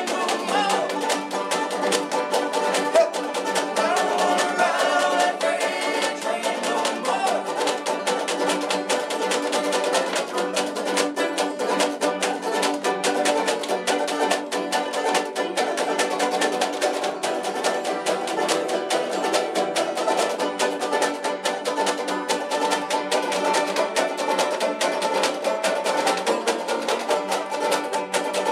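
Three banjos played together in a busy, steady plucked ensemble, with nothing in the deep bass.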